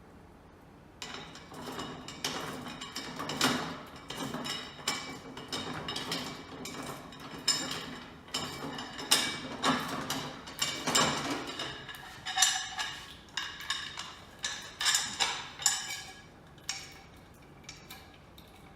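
Irregular small clicks, clinks and knocks of hard parts being handled as the top lock is taken off a Rhino Pro gumball machine.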